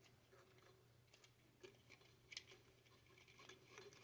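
Near silence with a few faint, scattered clicks and rustles of hands working a camera cable into a short piece of crimped plastic tubing.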